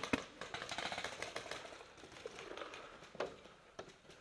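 Paintball markers firing: a couple of sharp shots right at the start, then a fast, fainter stream of pops for about two seconds, and a few scattered single pops after that.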